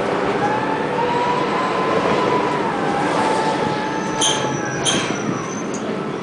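Tram running between stops, its wheels squealing on the rails in a wavering whine over steady running noise. Two sharp knocks come about four and five seconds in, with a high thin squeal between them.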